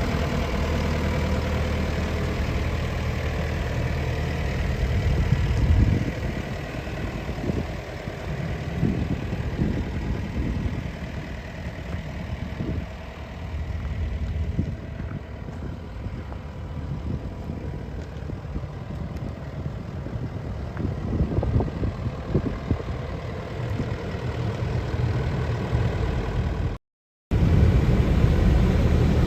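Komatsu PC88MR-10 hydraulic excavator's diesel engine running steadily. After about six seconds the sound becomes quieter and uneven, with irregular low thumps and knocks. Near the end the steady engine sound cuts back in after a brief break.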